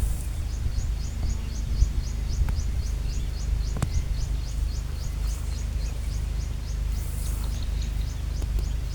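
A bird repeating a thin, high, slightly rising chirp about five times a second without a break, over a steady low rumble, with a single sharp click about four seconds in.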